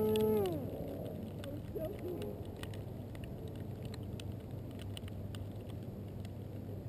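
An EasyStar RC plane's electric motor winds down, its whine falling in pitch and dying away within the first half-second after the crash. Then only a faint steady low background noise with a few soft ticks.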